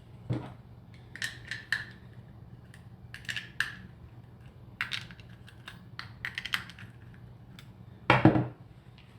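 Small metal hardware and hand tools clinking and clattering in handling, some clinks briefly ringing, with a heavier knock about eight seconds in.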